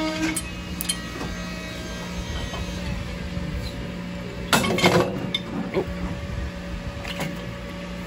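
Steady low machine hum with handling noises over it: rustling, small clicks and a louder clatter about four and a half seconds in.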